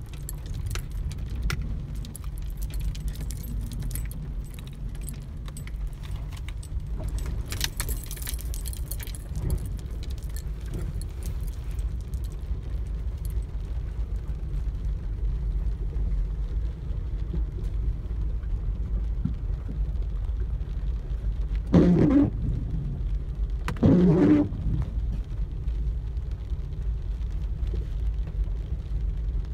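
Car driving through flooded, rain-soaked streets, heard from inside the cabin: a steady low rumble, with light tapping and jingling over the first dozen seconds. A little past twenty seconds in come two short, louder surges about two seconds apart.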